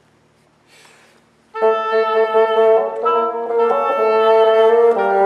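Oboe and bassoon duo starting a klezmer tune together about a second and a half in: the oboe's melody over the bassoon's lower notes.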